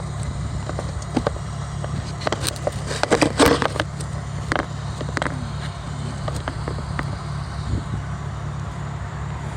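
Chrysler Crossfire SRT-6's supercharged 3.2-litre V6 idling steadily while being checked for a misfire, with irregular clicks and crackles over the engine hum, loudest about three to four seconds in.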